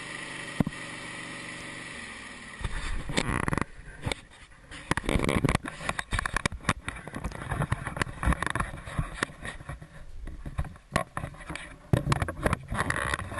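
Wood-Mizer LT15 sawmill running with a steady hum that stops about three and a half seconds in, followed by irregular knocks, clunks and scrapes.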